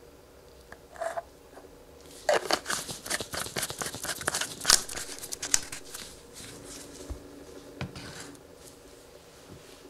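Plastic screw cap being twisted shut on a plastic motor-oil bottle: a quick run of plastic clicks and scrapes lasting about four seconds, with a single click just before and a few scattered clicks after.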